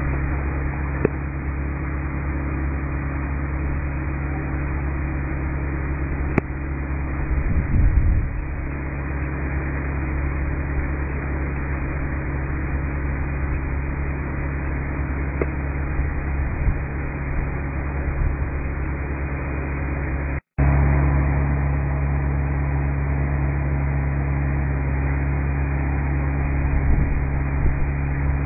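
Hitachi Zaxis 330 hydraulic excavator's diesel engine running steadily, a low even drone. It cuts out for a split second about twenty seconds in, then carries on slightly louder.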